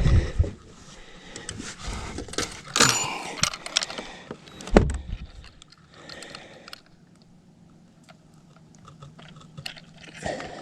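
Gear being handled in a fishing boat while a caught bass is weighed: scattered clicks, rattles and scrapes, with one heavier knock about five seconds in.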